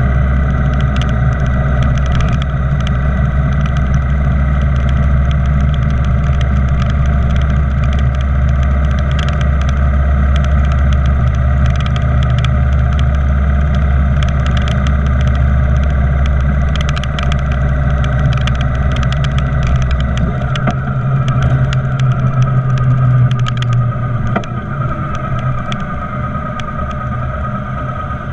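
Motorcycle riding at steady road speed: the engine runs under a constant rush of wind. About two-thirds of the way through the deep engine hum drops away, and the sound grows quieter near the end as the bike slows in traffic.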